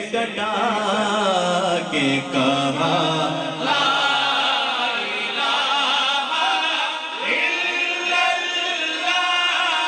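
A man reciting a naat, singing into a microphone in long, bending melodic lines. The voice grows stronger about four seconds in.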